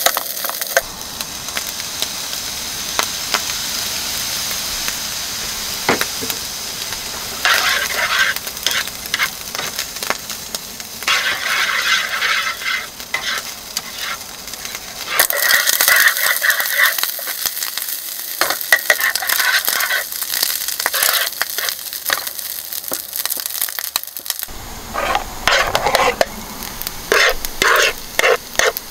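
Food sizzling in a frying pan, with a utensil stirring and scraping in bursts.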